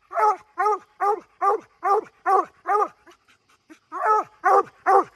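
Black and tan coonhound barking treed at the base of a tree, a quick run of short chop barks, about two or three a second, each rising and falling in pitch. The barking breaks off for about a second past the middle, then three more barks follow. This is the hound's tree bark, saying the raccoon is up the tree.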